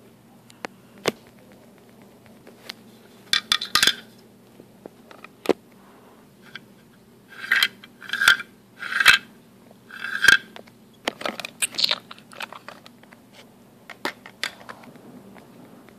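Hard plastic toys handled and knocked together: scattered sharp clicks and taps, with several short rasping scrapes in clusters, the loudest in the middle.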